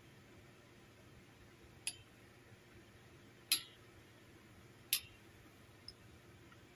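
Sharp clicks of a plastic microphone shock mount knocking against its boom-arm bracket while being fitted: three clear clicks about a second and a half apart, the middle one loudest, then a faint fourth near the end.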